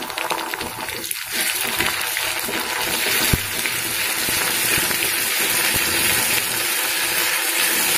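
Onions and ginger paste sizzling in hot mustard oil in a steel kadai as they are stirred with a metal spatula. The sizzle grows louder about a second and a half in, and the spatula knocks against the pan a few times.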